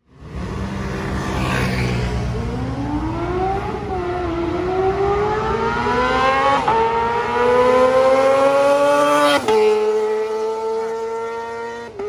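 Kawasaki ZX-25R 250 cc inline-four with a Leo Vince GP Corsa Evo short full-system exhaust, accelerating hard away. The revs climb to a high-pitched wail, drop at upshifts about four, six and a half and nine and a half seconds in, then hold a steady note that slowly falls away.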